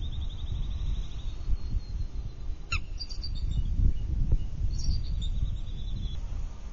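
Bald eagles calling, with sharp, high, falling notes about three seconds in and more high notes near five seconds, over a steady low rumble. This is the pair's defensive calling at a threat near the nest, likely an intruding eagle.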